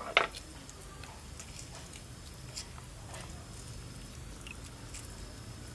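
Pot of water with chopped herbs heating on the fire, bubbling with many small scattered pops and ticks over a low steady hum; one sharp click just after the start.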